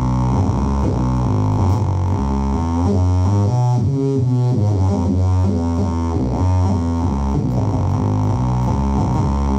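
Electric bass played through a Phil Jones Bass amp and cabinet, its tone treated into a nasty, droning new sound. Held notes shift in pitch, with a rippling sweep through the tone in the middle.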